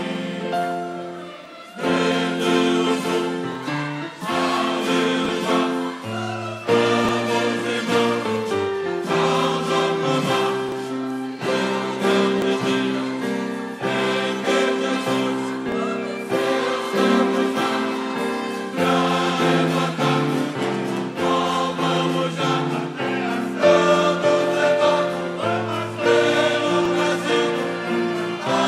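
A choir singing a gospel song in held chords, phrase after phrase, with short breaks between phrases.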